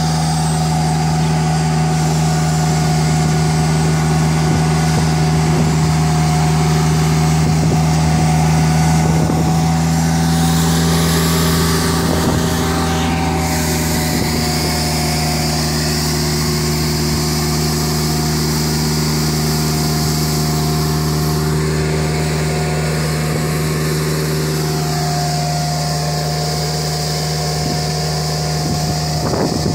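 Nilfisk CR2250 ride-on sweeper-scrubber running steadily as it drives over concrete: a constant engine drone with a steady high whine above it.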